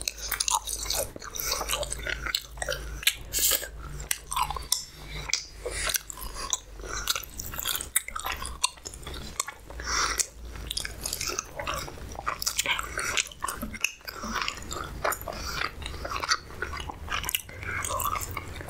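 A person chewing and biting oily, deep-fried puri bread with chickpea gravy: a continuous run of sharp, wet mouth clicks and smacks.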